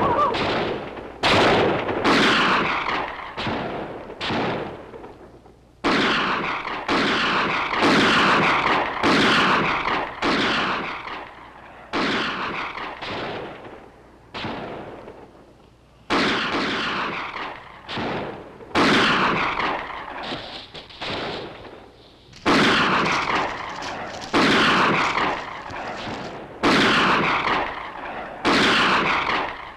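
An exchange of gunfire: single shots about one a second, each with an echoing tail, with a few short pauses.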